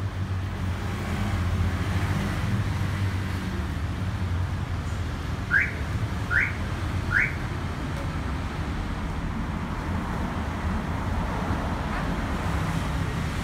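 Steady low rumble of road traffic, with three short rising chirps less than a second apart about halfway through.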